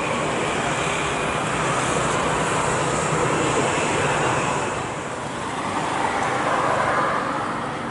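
The CFM56-7B jet engines of a Boeing 737-900ER during its landing rollout, a steady rushing jet noise that eases about five seconds in and swells again.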